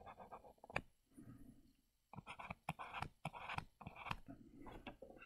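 Faint scratching and tapping of a stylus on a tablet screen during handwriting, in short strokes with a few sharp clicks.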